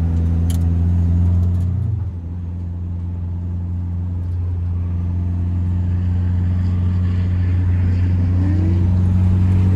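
Turbocharged Nissan 240SX (S13) engine heard from inside the cabin while driving; the engine note drops about two seconds in, then builds steadily toward the end.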